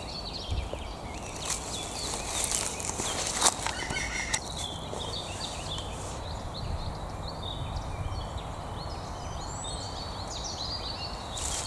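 Several songbirds singing: short, overlapping high chirps and trills. There are a couple of sharp clicks about three and a half seconds in.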